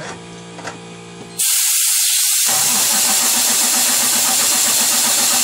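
Compressed air hissing loudly from an air gun through a leak-down tester hose, starting suddenly about a second and a half in; from about two and a half seconds a Cummins ISX diesel cranks and runs under the hiss, burning off the fuel left in its injectors.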